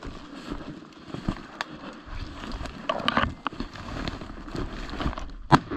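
Footsteps crunching in snow while dry cattails and brush swish and crackle against clothing, with a sharp crack near the end.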